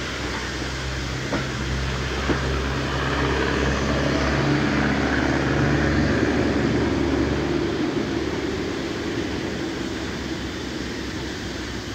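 Passenger train on a heritage railway pulling away, its coaches rolling along the track: a steady low drone with a rumble that swells and then fades after about eight seconds, with two short clanks in the first few seconds.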